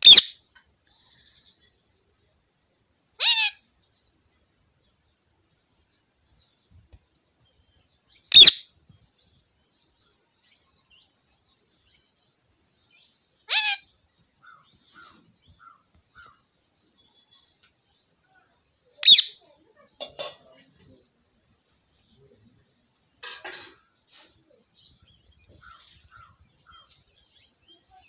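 Indian ringneck parakeet giving short, high-pitched calls, about seven single calls a few seconds apart, with faint chirping between.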